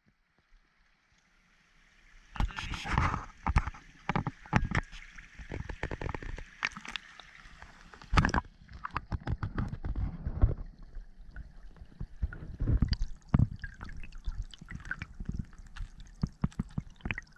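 Mountain stream heard with the microphone underwater: gurgling water with a dense run of irregular clicks and knocks, starting about two seconds in after near silence.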